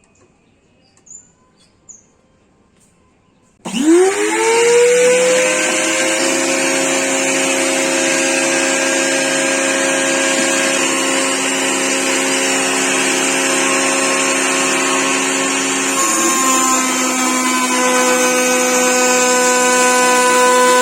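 A trim router switched on, spinning up quickly to full speed and then running with a steady high whine; its tone shifts slightly about twelve seconds after it starts.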